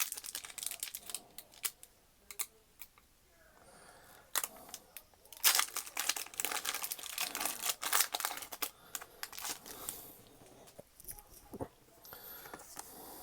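Foil booster pack wrapper being torn open and crinkled in irregular rustling bursts, busiest and loudest in the middle.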